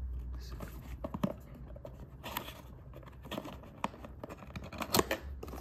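Cardboard box being handled and its flap pried open by hand: scattered scrapes, rubbing and small taps, with the sharpest click about five seconds in.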